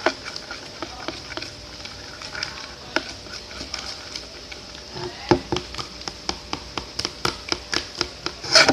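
Slime mixture of clear glue being stirred in a container, the stirrer clicking and tapping against the sides. From about five seconds in the taps come steadily, about three a second, with a louder scrape near the end.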